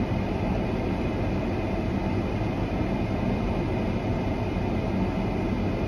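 Steady low rumble and hiss of a car running, heard from inside its cabin.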